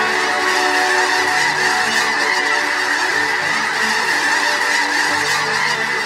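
A huge flock of snow geese taking off together, a dense, unbroken din of overlapping honking calls.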